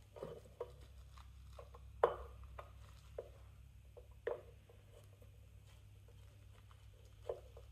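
Screwdriver working a handle screw on an Alvey side-cast fishing reel: scattered small clicks and scrapes of metal on the screw and reel, with a few sharper knocks, the loudest about two seconds in and about four seconds in. A faint steady low hum runs underneath.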